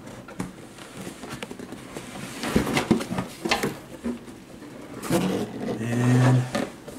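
Large cardboard model-kit box being tipped over and its inner box pulled out: cardboard scraping, rustling and a few knocks.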